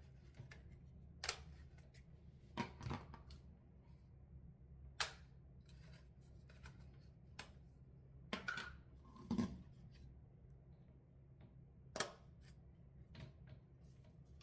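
Scattered sharp clicks and light knocks, about half a dozen spread a few seconds apart, over a faint steady low hum.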